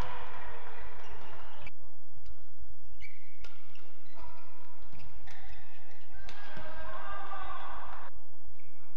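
Sports shoes squeaking on an indoor badminton court, with a few sharp racket hits on the shuttlecock during a short rally, over a steady low hum.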